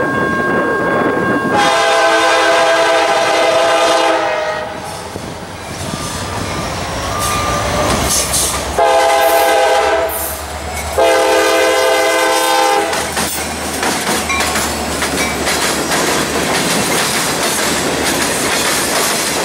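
CSX diesel locomotive sounding its multi-chime air horn for a crossing as it approaches: one long blast, then two shorter ones. After the horn comes the locomotive's engine rumble, then the clickety-clack of freight cars and a caboose rolling past on the rails.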